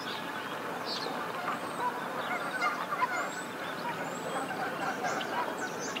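A chorus of waterfowl calling over one another, many geese honking, with a few thin high whistles that rise and fall above it.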